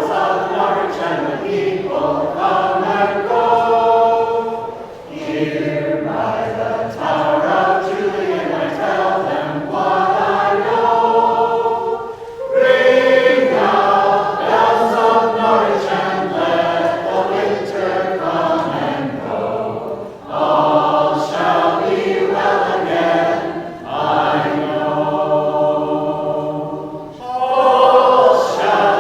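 A choir of several voices singing a song in harmony, in long held phrases with brief breaths between them.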